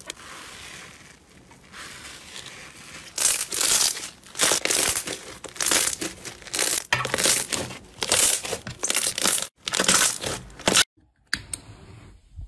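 Green slime being pressed, squeezed and stretched by hand, crackling and crunching in repeated loud bursts. It is faint for the first few seconds and cuts off suddenly near the end.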